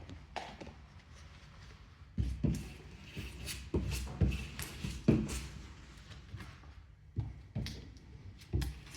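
Irregular knocks, taps and rubbing from hands working with glue tin, brush and PVC material while PVC glue is applied, several of them a second or less apart.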